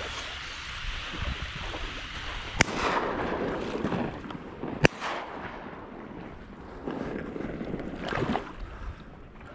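Two sharp shotgun shots about two seconds apart, each with a short echo, over a steady rushing background of wind and water.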